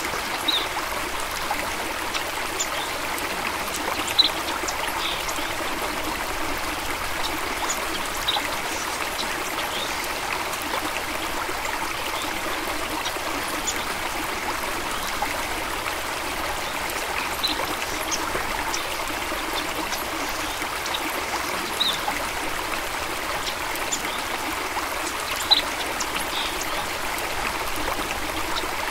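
Small stream running and trickling steadily over stones, with a brief higher plink of water every few seconds.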